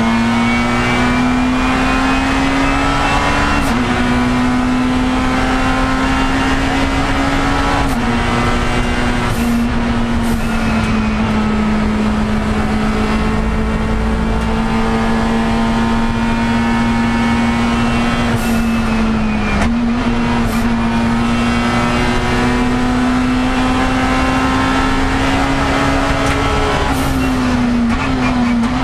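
Race car engine heard from inside the stripped cockpit, pulling hard under load. Its note climbs slowly and drops sharply at upshifts about 4 s and 8 s in and again near 20 s, holds almost level through the middle, and steps through several quick gear changes near the end.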